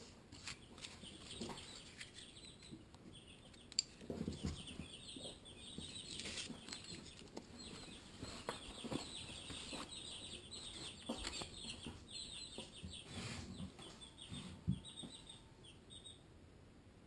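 Barred Rock and Ameraucana chicks peeping: many short, high-pitched cheeps in quick runs, with a few sharp taps, the loudest about four seconds in and another near the end.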